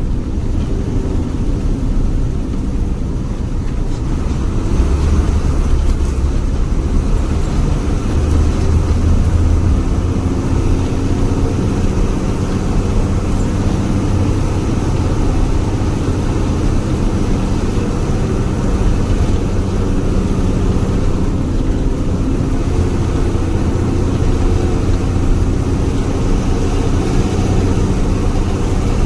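Jaya Guna HG intercity bus under way, heard from on board: a steady low engine rumble with the deep growl the title calls "ngorok" (snoring). It gets a little louder about four seconds in.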